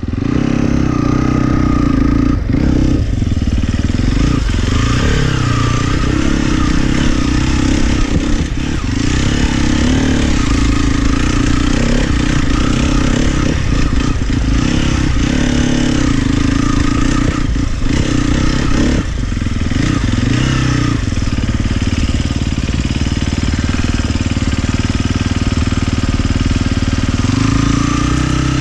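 Sherco 300 SEF Factory dirt bike's single-cylinder four-stroke engine running under load, heard from the rider's seat, its pitch rising and falling as the throttle is opened and closed, with brief dips off the throttle.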